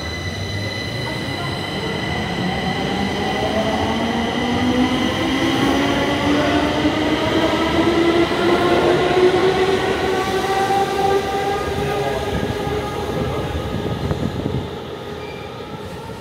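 Stockholm metro train's electric traction motors whining over the rumble of running on the rails, the whine rising steadily in pitch as the train accelerates. It drops away about a second and a half before the end.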